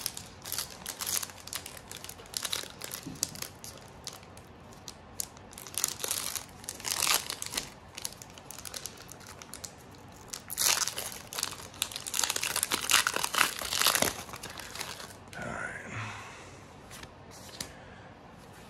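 Foil booster-pack wrappers crinkling and tearing as Pokémon trading-card packs are opened, in many quick crackles; the loudest stretches come about six to eight seconds in and again from about ten to fourteen seconds in.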